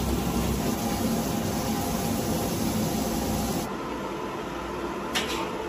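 Kitchen tap running steadily as pieces of raw pork fat are rinsed under it. A few seconds in this gives way to a quieter steady background noise, and a metal spatula clinks once against a wok near the end.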